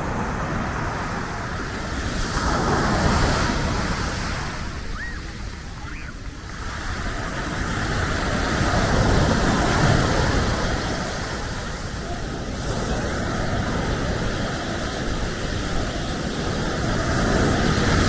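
Sea waves breaking and washing up the beach, the surf swelling and falling away about every six seconds, with wind rumbling on the microphone.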